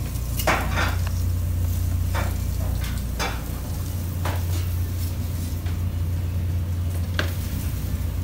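Steady low hum of commercial kitchen equipment, with scattered sharp clicks and clinks of metal tongs and utensils on the steel counter and cutting board.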